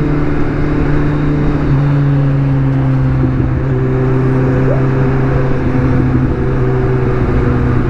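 Kawasaki Z1000's inline-four engine running steadily at highway cruising speed, with road and wind rush; the engine note dips slightly about two seconds in.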